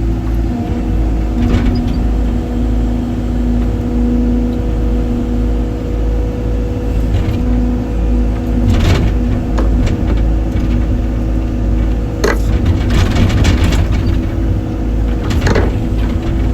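Excavator's diesel engine running steadily under load, with a few sharp cracks and a crackling stretch about three-quarters of the way through.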